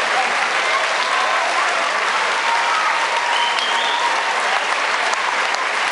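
Crowd of spectators applauding steadily in a hall.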